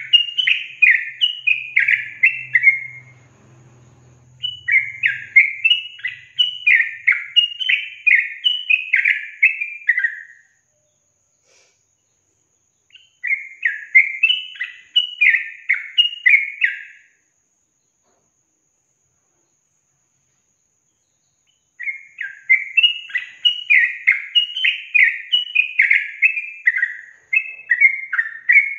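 Yellow-vented bulbul (trucukan) singing in bubbly, chattering phrases of rapidly repeated notes. Each phrase lasts a few seconds, with pauses of a few seconds between them.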